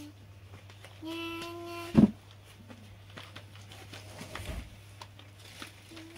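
A single sharp knock about two seconds in as plastic toy vehicles are handled, between short steady held vocal tones, one just before the knock and another near the end.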